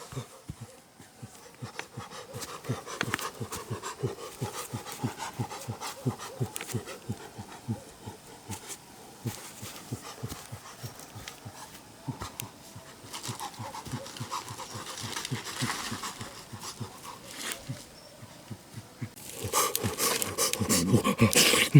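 An animal panting quickly and steadily, a few breaths a second, growing louder near the end.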